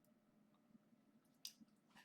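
Near silence: faint room tone with a single short computer click about one and a half seconds in.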